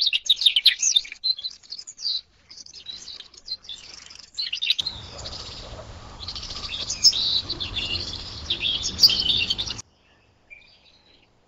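Assorted small birds chirping and calling in rapid, overlapping bursts, a series of separate recordings run together. From about five seconds in, the calls sit over a steady background hiss and rumble, which cuts off suddenly near ten seconds, leaving one faint call.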